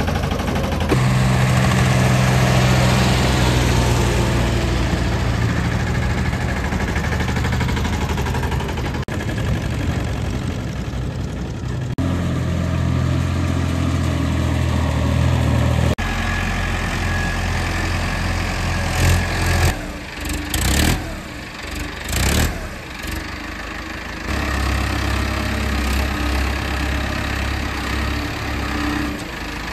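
Tractor diesel engines running at a steady, even beat, heard across several abrupt cuts. About two-thirds of the way through come a few brief, loud, noisy bursts.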